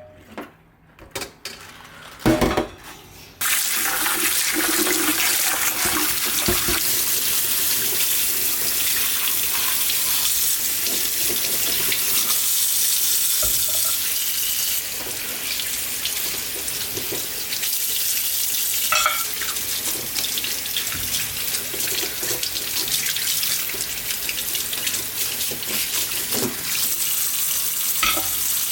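A few short clatters, then a kitchen tap running steadily into a sink from about three and a half seconds in.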